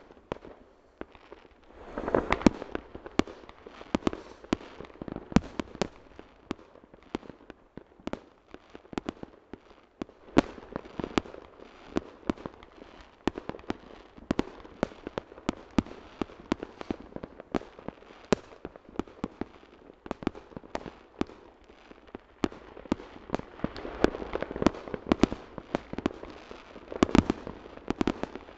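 Fireworks rockets and firecrackers going off: an irregular string of sharp bangs and pops, several a second, with busier stretches about two seconds in and near the end.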